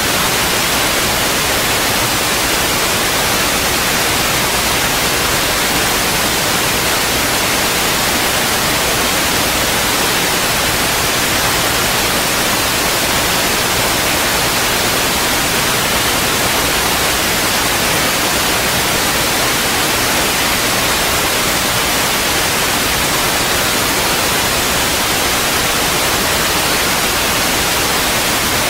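Loud, steady static hiss with nothing else heard in it, like an audio feed carrying only electronic noise.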